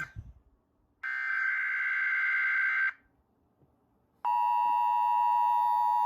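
Emergency Alert System signal: a two-second burst of screeching digital data tones (the SAME header), a brief gap, then the steady two-tone EAS attention signal starting about four seconds in. This precedes a tornado watch announcement.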